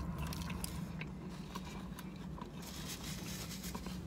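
Quiet chewing of fried food, with small mouth clicks and crackles scattered through, over a steady low hum in a car's cabin.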